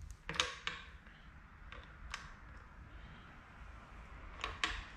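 A few sharp metallic clicks of a socket wrench being worked on a timing-cover bolt as it is run down snug: a short cluster near the start, two single clicks in the middle and another short cluster near the end.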